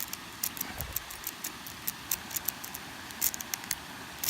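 Lock pick raking and probing inside a cheap 63 mm padlock: quick, irregular metallic clicks and scrapes of the pick against the pins, several a second.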